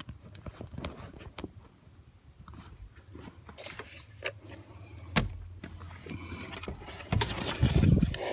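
Light clicks and rattles of parts being handled during a blower-motor install, over a steady low hum, with a louder low rumble for about a second near the end.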